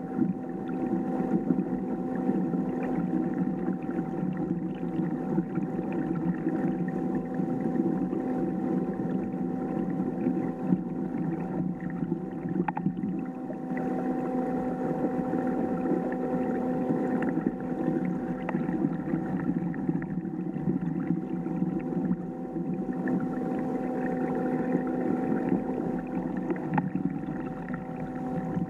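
Kayak's electric motor running at a steady speed: a constant whine over the rush of water along the hull.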